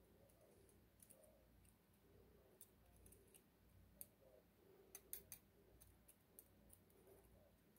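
Near silence with faint, scattered small metallic clicks and ticks from a thin tool working on an Abloy Exec disc-detainer lock cylinder as it is being taken apart. A few clicks come close together around the middle.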